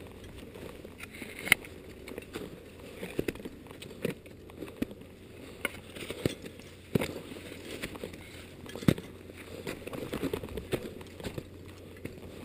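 Climbing movement on a snowy rock ridge: steps crunching in snow and scraping on granite, with irregular sharp clicks and knocks of gear against rock every second or two.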